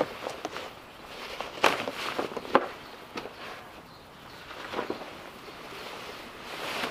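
A fabric boat cover being dragged back off an inflatable boat: cloth rustling and rubbing, broken by a few sharp knocks and clicks, the loudest about two and a half seconds in.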